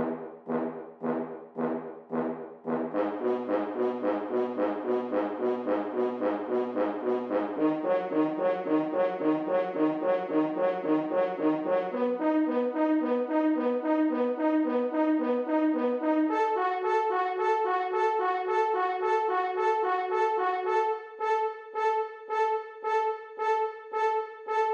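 Background music of short, repeated brass-like notes in a steady pulse, climbing in pitch in several steps like a building, impatient vamp; the notes come sparser at the start and again near the end.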